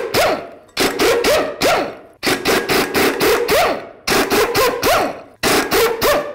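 Snap-on air impact wrench hammering in about four bursts of roughly a second each, with a rising whine in each as the motor spins up. It is driving an inverted Torx E18 socket to break loose the bolts holding the rear brake rotor to the hub.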